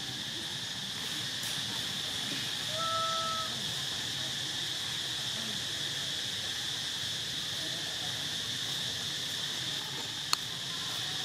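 Steady high insect drone from a forest insect chorus. About three seconds in, a short level call sounds once, and near the end there is a single sharp click.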